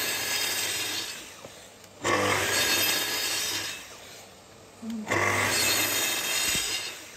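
Plunge-cut track saw making short bevelled cuts into birch plywood. There are three bursts of motor whine and cutting, each about two seconds long and fading as the blade winds down. The first is already under way, the next starts about two seconds in, and the last about five seconds in.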